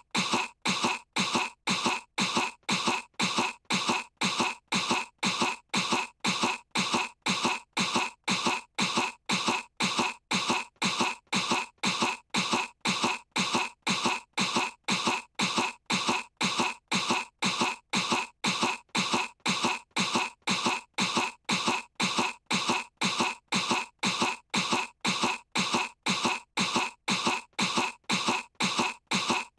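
A cartoon girl's fake, put-on cough, a short cough looped over and over at about two coughs a second without a break.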